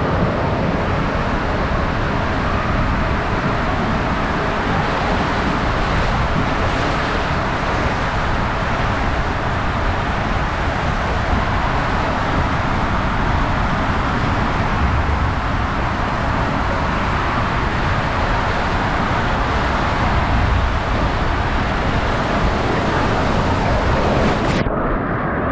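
Steady rush of water under a raft tube sliding down an enclosed tube water slide, heard from the rider's camera. Near the end the raft splashes down into the exit pool and the sound suddenly turns muffled.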